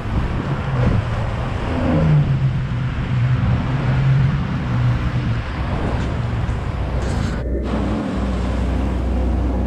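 Sea-Doo GTX 4-TEC personal watercraft engines running and revving up as the jet skis pull away, with the rushing of water from the jet wake. The sound breaks off briefly near the end and resumes as a steadier running drone.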